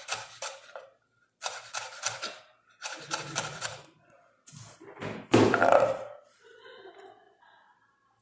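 Chef's knife chopping red bell pepper on a bamboo cutting board: four quick runs of sharp knocks on the wood, the last and loudest one, about five seconds in, longer and scraping as the pieces are gathered up.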